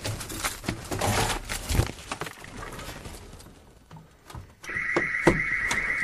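Clothes and wire hangers rattling and rustling as someone pushes into a closet. About three-quarters of the way in, a home security alarm starts sounding, a steady, high, pulsing electronic tone: the entry delay after a simulated front-door break-in has run out before the control box could be reached.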